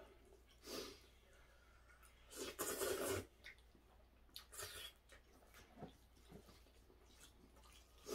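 A man slurping and chewing noodles: a few short slurps, the longest and loudest about three seconds in, with smaller ones between.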